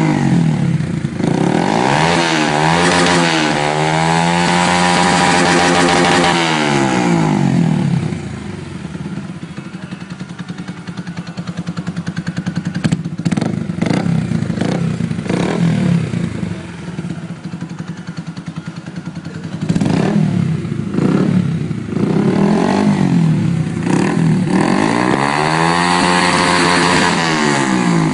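Stallion Centaur 150 motorcycle engine through an aftermarket megaphone exhaust, revved again and again at first. It then settles to idle with short throttle blips, and revs up and down once more near the end.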